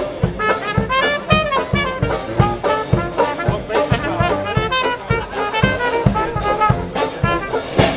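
Dixieland jazz marching band playing live: trumpet, trombone and saxophones weave melody lines over a steady bass-drum beat.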